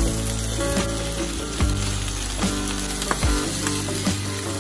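Chopped cabbage sizzling in a hot oiled frying pan, over background music with a steady beat about every 0.8 seconds.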